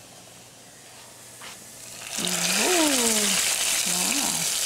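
Garlic frying in olive oil in a pan. The sizzle is faint at first, then about two seconds in it suddenly turns loud and keeps going. Partway through there is a brief wordless voice sound that slides up and down.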